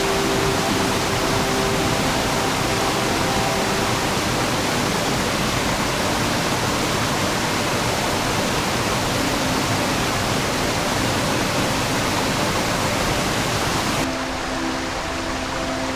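Rushing water of a mountain gorge stream, a steady, even rush. About two seconds before the end it cuts to a slightly quieter, duller stretch of water.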